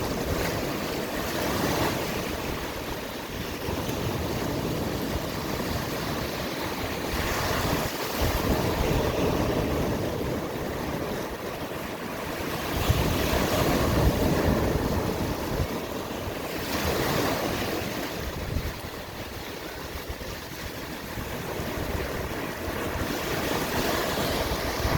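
Waves of the Black Sea breaking and washing in, rising and falling every few seconds, with wind buffeting the microphone.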